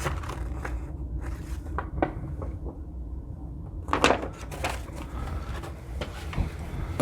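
Handling of a paper play mat and cardboard box: a few light taps and rustles, the loudest a brief rustle about four seconds in, over a low steady hum.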